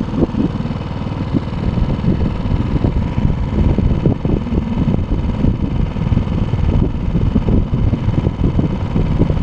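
Motorboat's outboard motor running steadily.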